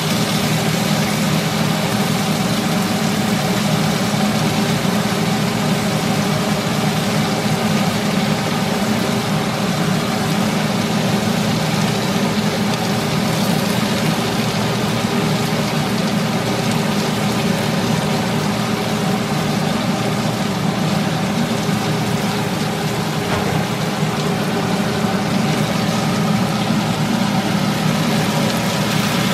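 Steady motor hum with an even hiss over it, unchanging throughout, as diced pork belly fries in a wok.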